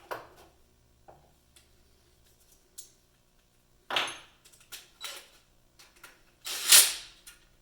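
Metal clinks and clatter of hand tools and bolts being handled, with a few light ticks, a sharper clatter about four seconds in and a louder, longer rattle near the end.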